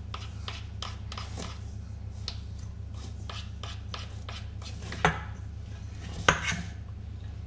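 Spoons scraping and clinking against a stainless steel mixing bowl as a thick icing mixture is stirred, in irregular scrapes and taps with two louder knocks near the end. A steady low hum underneath.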